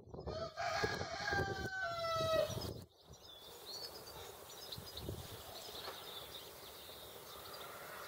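A rooster crowing once, a long call that falls at the end, over light clatter of metal hub parts being handled. About three seconds in the sound drops suddenly to a quieter background with faint high bird chirps.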